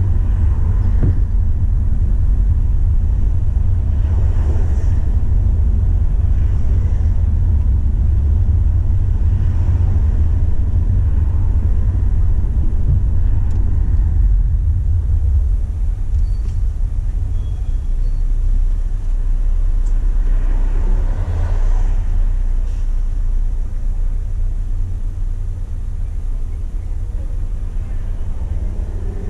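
Steady low rumble of a car being driven, engine and road noise heard from inside the car, with a slight easing partway through.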